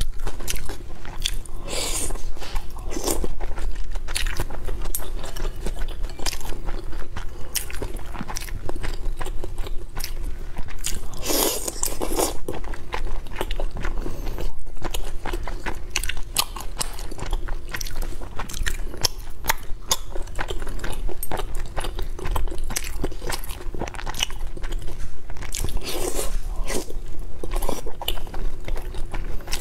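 Close-miked chewing and biting of skewered bobo chicken pieces in chilli oil: a dense, continuous run of crunchy mouth sounds with a few louder bites.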